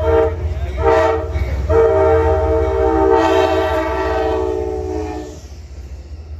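Amtrak passenger-train diesel locomotive's horn sounding as the train passes close by: a short blast about a second in, then a long blast that cuts off about five seconds in, over the steady rumble of the train going by.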